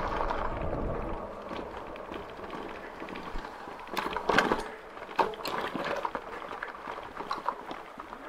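E-bike rolling down a gravel road: a steady crunch and hiss from the tyres, with irregular rattles and knocks as the bike goes over bumps, the loudest about four seconds in.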